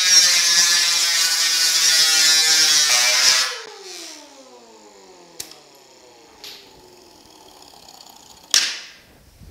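Air-powered angle grinder with a sanding disc skimming the steel running board, a steady whine with the hiss of grinding metal, as a quick pass to show the high and low spots left in the hammered repair. About three and a half seconds in it is lifted off and the whine falls as the disc spins down, followed by a few light clicks and a brief sharp sound near the end.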